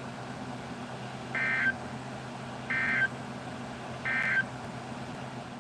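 Three short bursts of Emergency Alert System (SAME) digital data tones, each a buzzy warble about a third of a second long, spaced about 1.3 seconds apart: the end-of-message code that closes the warning. A low steady hum from the radio feed runs underneath.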